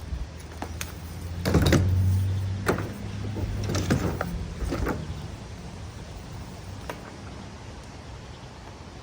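Electric drill running while drilling holes in the wheelbarrow, a steady motor hum with louder grinding surges as the bit bites, loudest about a second and a half in.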